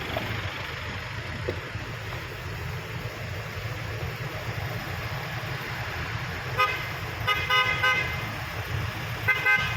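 A vehicle horn honks in a series of short toots, starting about two-thirds of the way in and coming again near the end. A heavy engine runs steadily as a low rumble underneath.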